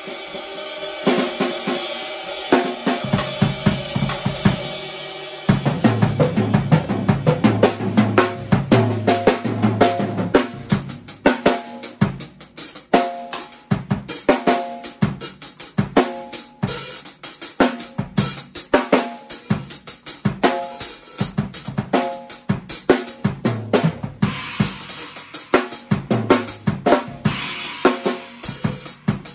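A drum kit played with sticks. Cymbals ring over scattered hits for the first few seconds, then it steps up into a busy, louder groove of bass drum, snare and toms under hi-hat and cymbals. Near the end the playing goes back to heavier cymbal work.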